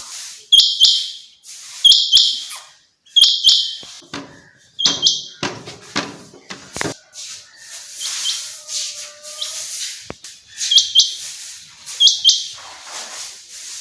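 Common quail calling: a run of sharp, high, clipped phrases, about one every second and a half, with a pause of a few seconds in the middle.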